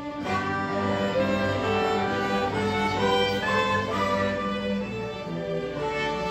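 Chamber string ensemble of violins, cellos and double bass playing together: held low notes under a moving upper part.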